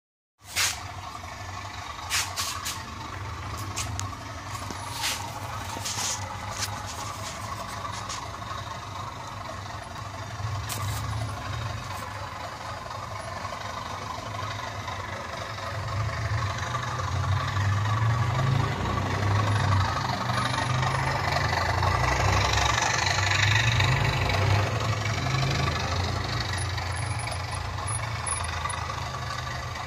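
Model railway train, a model Class 37 diesel locomotive hauling a long rake of coaches, running on the track with a steady low hum and rumble that grows louder as the train comes past close by about halfway through. A few sharp clicks come in the first few seconds.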